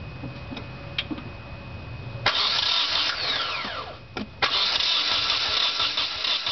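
Nissan KA24DE four-cylinder engine cranking on its starter without firing: a no-start. A steady low hum comes first, then the cranking starts about two seconds in, stops for a moment near four seconds, and starts again.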